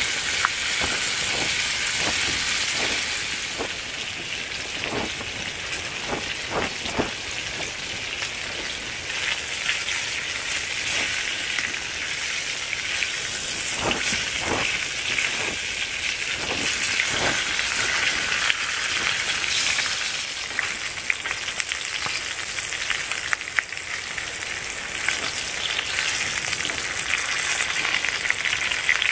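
Bacon-wrapped food sizzling steadily in a cast-iron skillet on a twig stove. Over the first several seconds a knife cuts red pepper with a series of taps on a wooden board, and around the middle wooden utensils knock against the pan as the food is turned.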